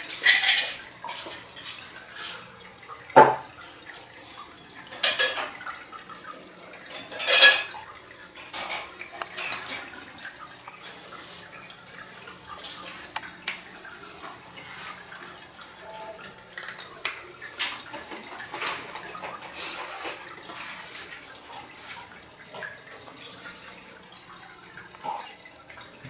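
A cat crunching dry kibble from a dish on a raised feeder: irregular crunches and clicks of kibble against the dish, louder and denser in the first several seconds.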